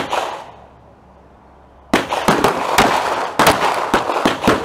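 9mm pistol gunshots: one sharp shot at the start, then, about two seconds in, a quick string of several shots ringing into one another for about two and a half seconds.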